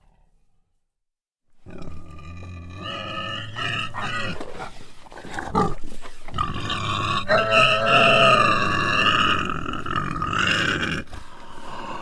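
An animal squealing in long, drawn-out pitched calls that start after about a second and a half of silence and grow louder past the middle.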